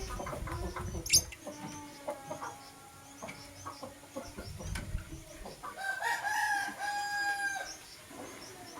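Lovebirds chirping in short, sharp high calls, one loud call about a second in. A rooster crows in the background from about six seconds in, one long call lasting nearly two seconds.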